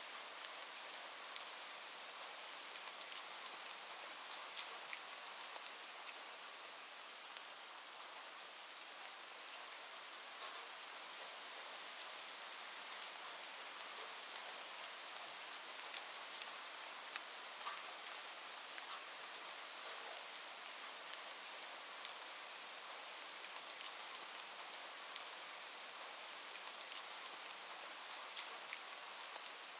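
Steady rain falling, an even hiss with many small sharp drop ticks scattered through it.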